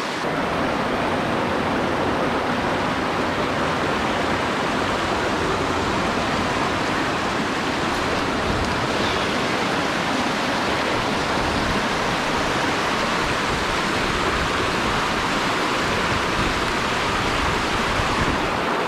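A small high-mountain stream running: a loud, steady rush of water.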